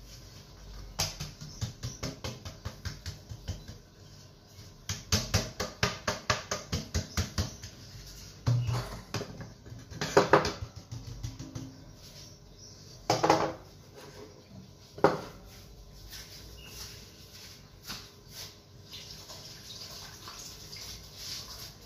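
Metal springform cake tin tapped by hand in quick runs of light taps while it is tilted and turned, spreading flour over its buttered inside, then three louder single knocks.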